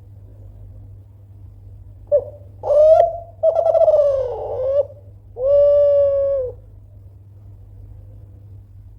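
Kelantan spotted dove (tekukur) cooing one phrase about two seconds in: two short notes, a longer rolling coo that dips in pitch, then a long steady final coo. A low steady hum sits underneath.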